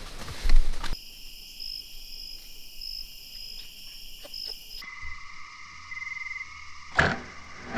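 Steady chorus of crickets and other insects, with repeating high chirps, that shifts to a lower-pitched chorus about five seconds in. A loud noisy burst fills the first second, and a sharp crack comes about seven seconds in.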